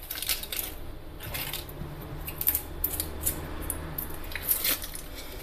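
Wrapper crinkling and crackling in short irregular bursts as a small piece of food is peeled out of its wrapping by hand, over a steady low hum.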